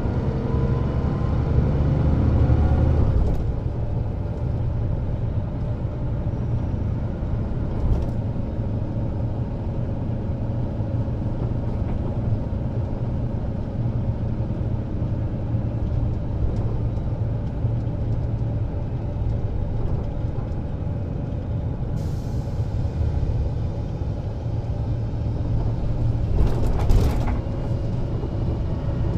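Mercedes-Benz O407 city bus under way, its horizontal six-cylinder diesel running steadily through the ZF Ecomat automatic gearbox. The engine note drops about three seconds in, and there is a short hiss of air near the end.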